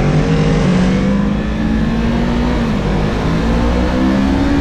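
Yamaha YZF-R3's parallel-twin engine running, its pitch rising and falling gently with small changes in revs.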